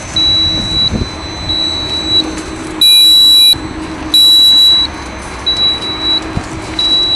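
Building maintenance unit's warning beeper sounding a high-pitched beep at a steady, even pace, six beeps, the two in the middle much louder, over a low steady machine hum.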